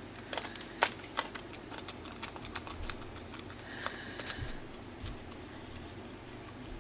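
Small clicks and taps from backing a screw out of a 3D-printed plastic pivot cover with a screwdriver and handling the plastic parts. The clicks are thickest in the first second or so, with a few more about four seconds in.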